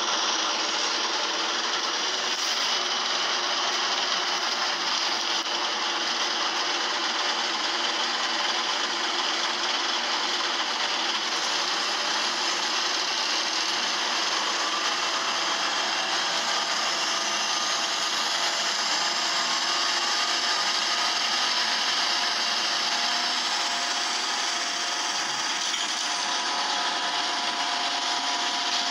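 Single-decker bus under way, heard from inside the passenger saloon: steady engine and road noise with a hissy edge, with faint whines that rise around the middle and a thin steady tone near the end.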